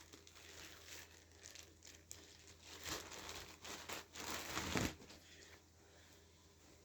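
Parcel packaging being crinkled and torn open by hand, in irregular bursts, loudest about three seconds in and again just before five seconds, then fading to faint handling.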